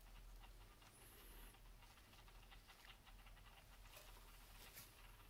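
Near silence: room tone with a faint steady low hum and a few faint rustles near the end.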